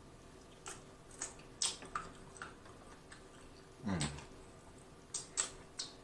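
Close-up mouth sounds of eating chicken wings: wet lip smacks, sucking and chewing clicks, scattered through the first two seconds and again near the end. About four seconds in comes a short low "mm" of enjoyment that falls in pitch.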